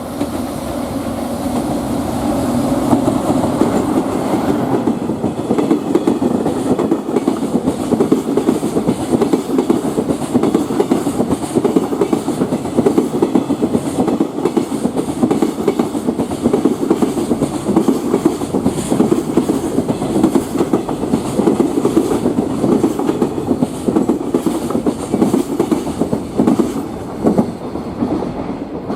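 Freight train of container wagons rolling past at speed, a steady heavy rumble with rapid wheel clacks over the rail joints. It builds over the first few seconds and begins to fade at the very end.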